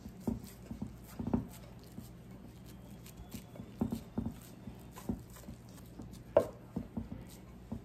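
Hands patting and pressing a raw ground beef meatloaf mixture into a loaf in a baking dish: irregular soft slaps and squishes, with one sharper pat a little after six seconds in.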